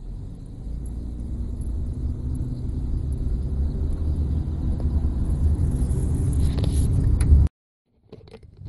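Car driving, heard from inside the cabin: a low rumble of engine and road noise that grows steadily louder, cut off abruptly about seven and a half seconds in.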